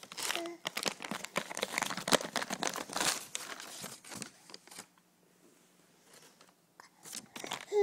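Magazine paper crinkling and rustling as a baby grabs and handles the pages: a quick run of papery rustles that dies away a little after four seconds, followed by a few faint clicks.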